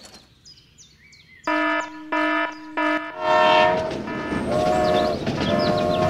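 A horn sounding: three short toots about half a second apart, then longer held blasts that carry on. It is most likely a horn sound effect for a toy truck or train.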